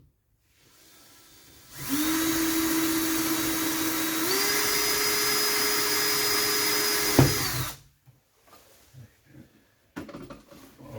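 Power drill drilling a fixing hole into the wall through the shower enclosure's aluminium wall profile: a steady motor whine for about six seconds, stepping up in pitch partway through, with a knock shortly before it stops.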